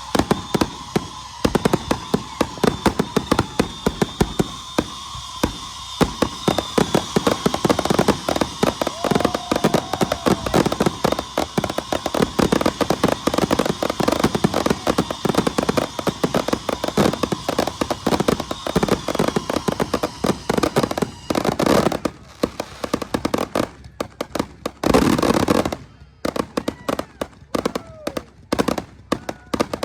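Fireworks going off: a rapid, dense run of crackling reports that thins out over the last third into scattered bangs, with one louder burst among them.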